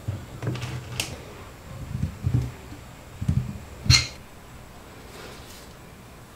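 Handling noise from assembling small wooden and metal parts on a wooden workbench: a few scattered knocks and clicks, the sharpest about four seconds in.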